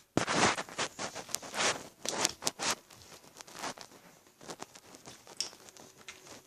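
Bead slime (slime with small beads pressed in) being squeezed and kneaded by hand, giving irregular crackles and clicks, busiest in the first three seconds and fainter after.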